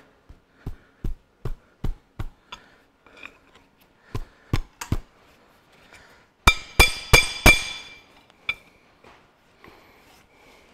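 Steel injector bar knocking against an injector nut on a Ferguson 23C diesel engine while working the injector loose: a run of light metal taps, then four louder, ringing metal clinks about six and a half seconds in.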